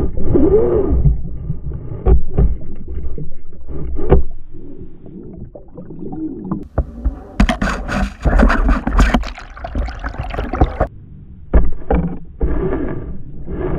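Underwater sound picked up by a submerged camera: gurgling water with scattered sharp knocks, and a loud burst of hissing, splashing noise from about seven and a half to eleven seconds in.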